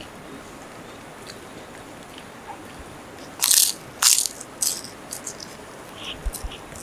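Crunchy fried food being bitten and chewed: three loud crisp crunches in quick succession about halfway through, then a few fainter crackles.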